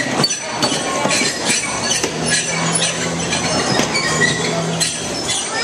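Irregular metallic clicks and clinks, with a steady low hum from about two seconds in until near the end.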